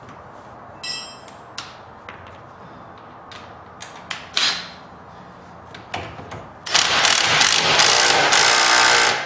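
Scattered clicks and clinks of hand tools on metal, then an impact driver hammering for about two and a half seconds near the end, tightening the nuts down.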